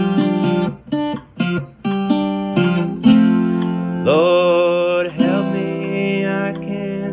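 Acoustic guitar playing a melody of separate picked notes, with one note gliding upward about four seconds in.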